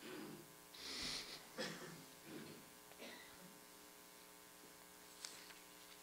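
Faint room tone with a steady electrical mains hum, and a few soft rustles and knocks in the first three seconds and a small click near the end.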